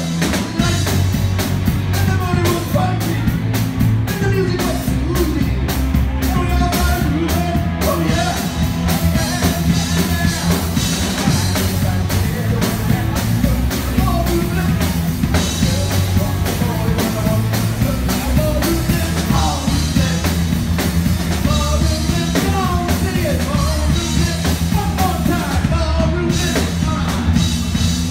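Live rock band playing loud, with electric guitars, drum kit, keyboard and a singer on lead vocals.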